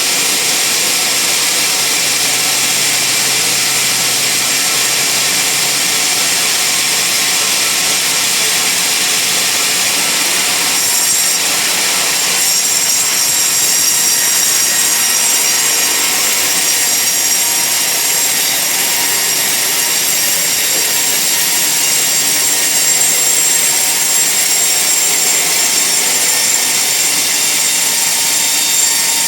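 Band sawmill blade cutting lengthwise through a large log: a steady, loud, high-pitched whine that changes slightly about eleven seconds in.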